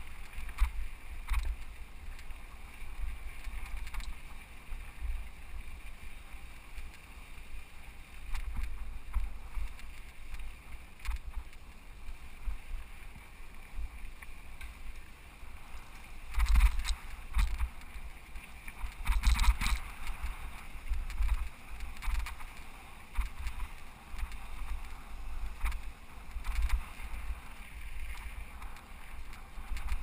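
Mountain bike ridden along a dirt singletrack trail, heard from the rider's camera: wind rumbles on the microphone while the bike rolls and rattles over the rough ground. There are two louder bouts of clatter a little past the middle.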